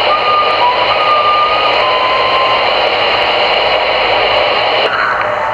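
CB radio receiver on channel 22 giving out loud, steady static hiss between transmissions, with a few faint whistling tones that shift slightly in pitch during the first half.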